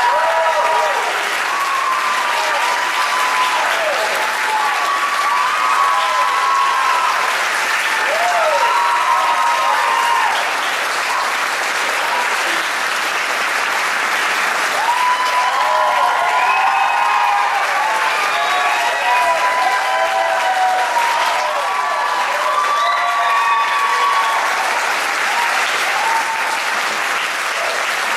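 Theatre audience applauding steadily, with whoops and cheers rising and falling above the clapping.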